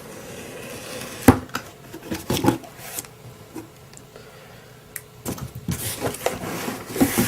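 Cardboard box being opened and its packaging handled. There is a brief sliding rub, then a sharp knock about a second in, a few taps and clicks, and a rustling of packaging near the end.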